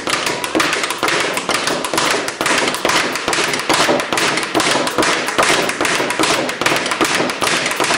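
Title Boxing GYRO Balance 5x8 speed bag being punched, its leather body rattling off the rebound platform in a fast, steady, unbroken rhythm of sharp thuds.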